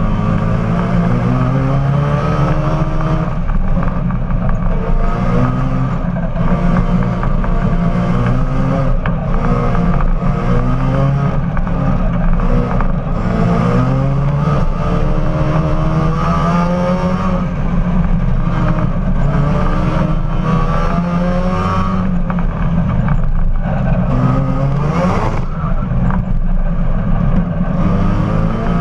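Supercharged rotary engine of an Austin-Healey Sprite race car, heard from the cockpit under hard driving. Its pitch climbs and drops back again and again, every couple of seconds, as it accelerates and lifts off.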